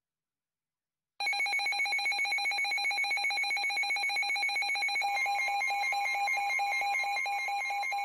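Midland NOAA weather alert radios sounding their warning alarm for a severe thunderstorm warning: a loud, rapid pulsing beep, about six or seven pulses a second, starts suddenly about a second in. A second, slightly different pulsing tone joins about five seconds in.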